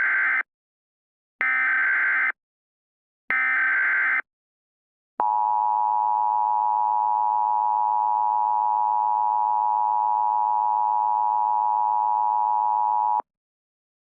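Emergency Alert System tones: three short data bursts of the SAME header, each about a second long, then the two-tone EAS attention signal (853 and 960 Hz), held steady for about eight seconds and cut off sharply.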